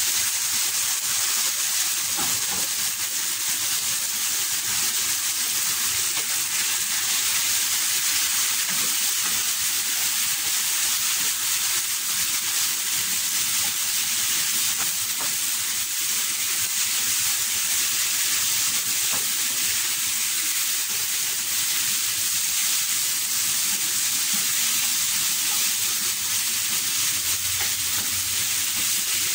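Sliced bitter gourd frying in hot oil with onion and tomato in a frying pan: a steady sizzle as it is stirred with a wooden spatula.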